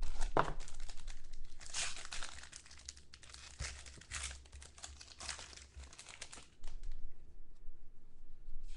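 Plastic wrapping and packaging of a trading-card box being torn open and crumpled, a dense crinkling and tearing for about seven seconds, then fewer, quieter crackles, with one more short rustle near the end.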